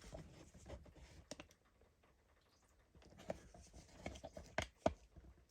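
Faint scattered clicks and light knocks, a little over a second of them, then a short lull, then picking up again with two sharper knocks near the end.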